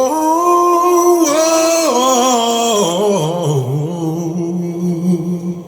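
A man's voice singing a long drawn-out "whoa" with the pitch sliding and wavering, played back loud through an American Bass SQ6.9 6x9 speaker.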